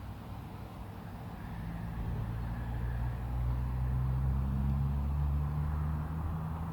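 A motor vehicle's engine humming low and steady, growing louder about two seconds in and easing off near the end as it goes by.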